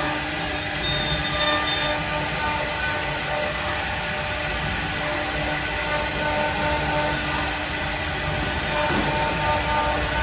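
CNC router running: a steady mechanical din with several thin whining tones over it, some coming and going.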